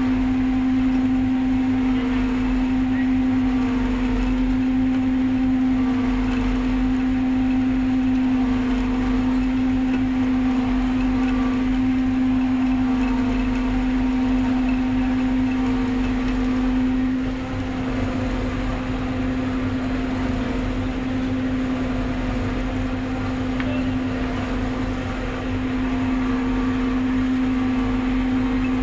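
Maize silage harvester running steadily while cutting standing maize, heard from the operator's seat: a steady machine drone with a strong constant hum. The drone dips briefly twice in the second half.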